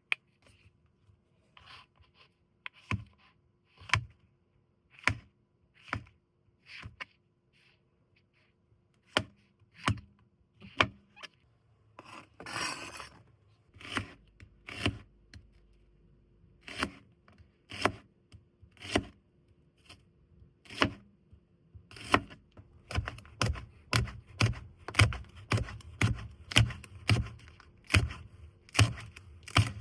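Knife chopping food on a cutting board: single sharp knocks about a second apart, quickening to a steady run of two or three a second in the last third, with a brief rustle near the middle.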